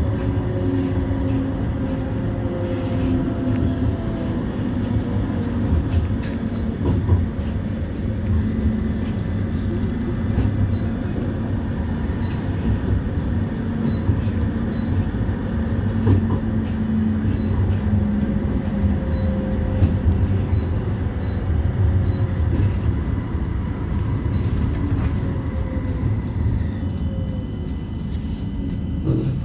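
West Midlands Metro CAF Urbos 3 tram running between stops: a steady low rumble of wheels on rail, with the traction motors' faint whine sliding slowly in pitch as the tram's speed changes.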